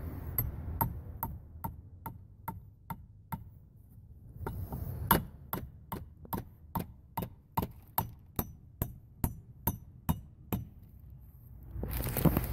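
Hammer driving a nail into a wooden stick with steady strikes about two a second: a run of about eight, a short pause, then about fourteen more. Rustling and handling noise near the end.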